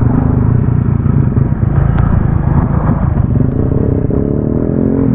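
Small motorcycle engine running steadily while riding, heard from the rider's seat, with other motorcycles riding close alongside.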